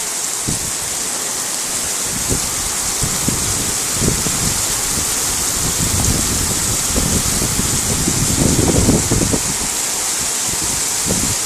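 Heavy rain pouring steadily as a dense hiss, with irregular low thuds underneath that bunch together about eight to nine seconds in.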